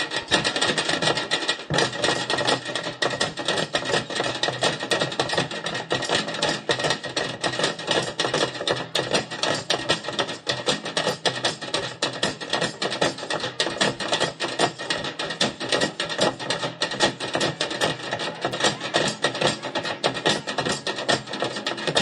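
Group bucket drumming: several players beating sticks on upturned buckets and containers used as drums, a fast, dense, steady stream of strikes.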